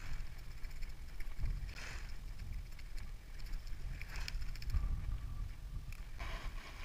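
Knife blade scraping scales off a blue runner jack in a few short strokes, over a steady low rumble of wind and water.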